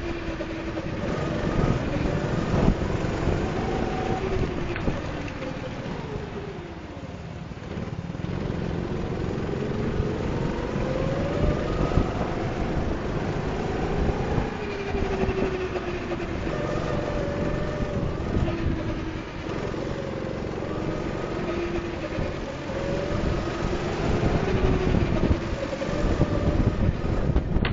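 Go-kart engine heard on board while lapping, its pitch rising and falling again and again as it speeds up and slows for the corners.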